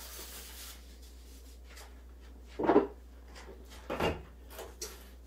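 Knocks and handling sounds on a stainless steel worktable as a wooden rolling pin is picked up and set against it: a short thump nearly three seconds in, a knock about a second later, and a few small clicks.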